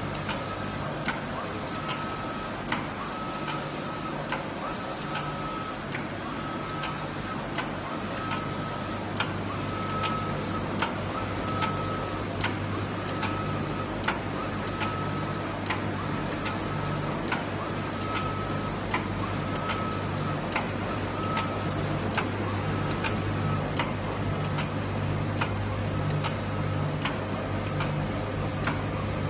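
Large-format textile printer running, with a steady low hum. Over it come a short whine and a sharp click, repeating about once a second.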